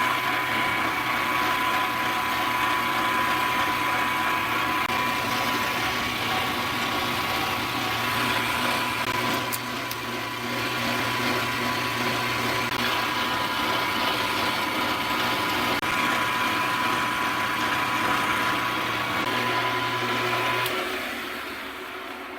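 A milling machine running, its end mill cutting a groove into a drill-press spindle, with a steady motor hum and whine that stop shortly before the end.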